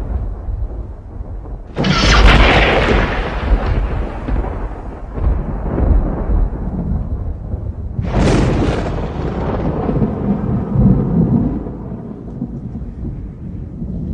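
Thunder: a low rumble dies away, then a sharp thunderclap cracks about two seconds in and rolls off into rumbling. A second sharp clap comes about eight seconds in and rumbles on, slowly fading.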